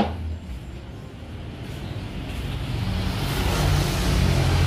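A sharp knock right at the start, then a motor vehicle's engine rumbling and growing louder as it approaches.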